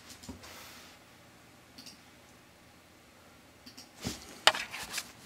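Computer keyboard and mouse clicks: a few faint scattered clicks, then a quick cluster of sharper clicks about four seconds in.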